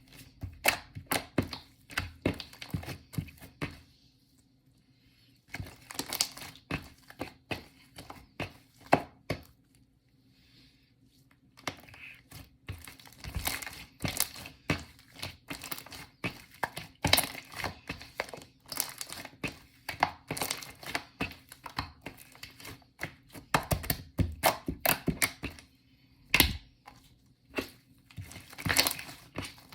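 Shaving-foam marbled slime being squeezed, poked and stretched by hand, giving runs of crisp crackling and popping clicks as air pockets burst, broken by two short pauses.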